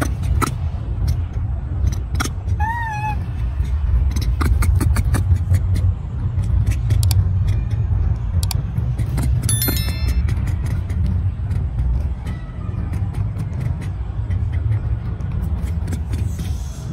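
A young macaque gives one short squeaking call, rising and then falling, about three seconds in. It sits over a steady low rumble and scattered clicks.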